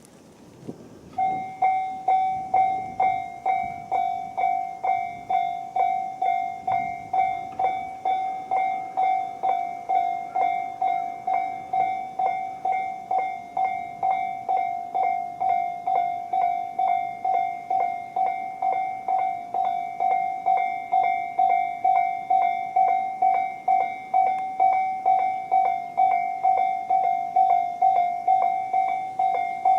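Japanese electronic level-crossing bell of Tobu's 'sound C' type, sounding on both sides of the crossing. It starts about a second in and rings steadily with an even, pitched ding about two times a second, warning that a train is approaching.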